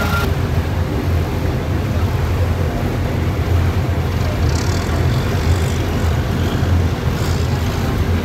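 River ferry's engine running with a steady low rumble under a wash of water and wind noise.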